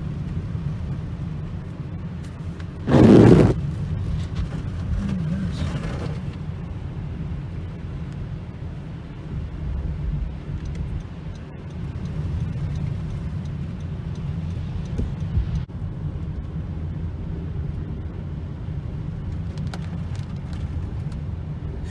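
Inside a moving car: steady low rumble of the engine and tyres rolling over a wet, hail-covered road. About three seconds in, a loud rushing burst lasts about half a second.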